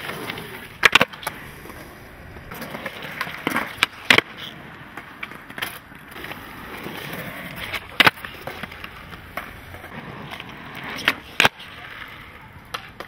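Skateboard wheels rolling over concrete, with sharp clacks of the board being popped and landed during flatground tricks: a quick pair about a second in, single ones around four and eight seconds, and another pair near the end.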